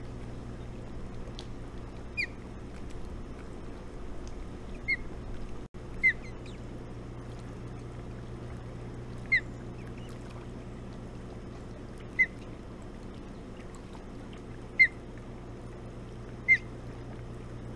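Ospreys at the nest giving short, sharp, high chirps, about seven of them spaced a few seconds apart, during a feeding of the young. A steady low background noise runs under them.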